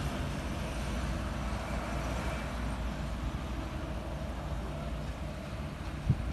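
Small hatchback car creeping along in low gear, its engine running with a steady low rumble. A single short thump comes about six seconds in.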